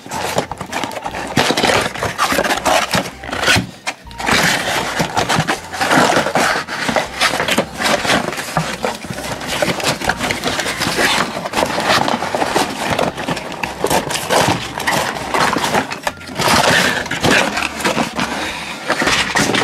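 A cardboard toy box being opened and a packaged toy truck set slid out: a steady run of short knocks, rubs and scrapes from cardboard and a plastic packaging tray being handled.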